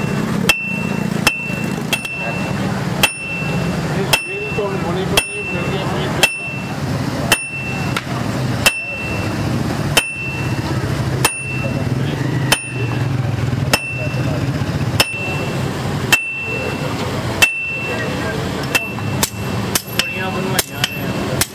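Hand hammer striking a red-hot steel knife blade on an anvil at a steady pace of about one and a half blows a second, each blow with a short bright ring. The blows come closer together near the end.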